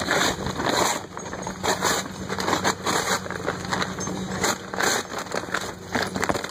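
Paper charcoal bag being torn and handled, with a run of uneven ripping and crinkling bursts.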